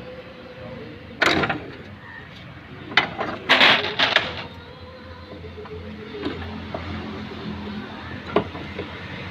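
Metal clanks and scraping from car suspension parts and tools being handled, a few separate knocks and a longer rattle over a low steady hum.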